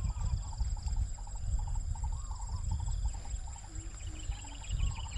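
Outdoor ambience: wind buffeting the microphone, a steady high-pitched insect drone, and short bird chirps repeated in quick little groups.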